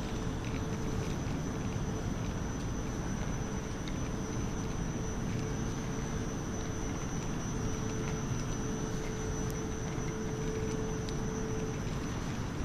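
Aeroexpress electric train standing at the platform with its equipment running: a steady hum with a steady mid-pitched tone and a faint high whine over a low rumble.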